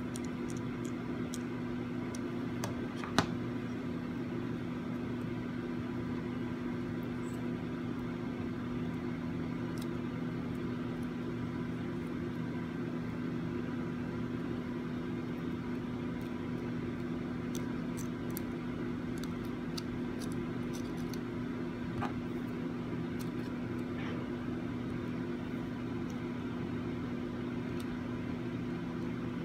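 Steady machine hum at an even level, with a few light clicks and one sharper click about three seconds in.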